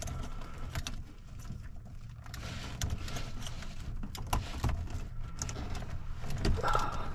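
Cables and wiring being handled by hand: rustling with a scattering of light plastic clicks and knocks as a cable connector is worked into a port, over a low steady hum.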